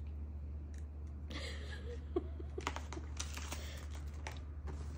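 Rustling and crinkling of a snack-bar wrapper, with light clicks and knocks as cardboard snack boxes are handled, over a steady low hum.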